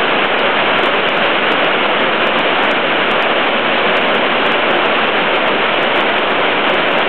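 Heavy rain pouring down: a dense, steady hiss that holds at an even level.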